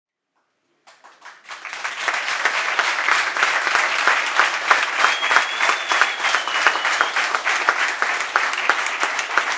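Crowd clapping and applauding, starting about a second in and building quickly to a steady, dense applause. A thin high whistle runs over it for about two seconds midway.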